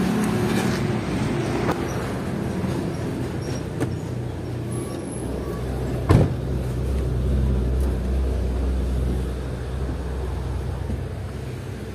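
UD Quester truck's diesel engine idling steadily, heard from its cab, with a few light clicks and a single heavy thud about six seconds in.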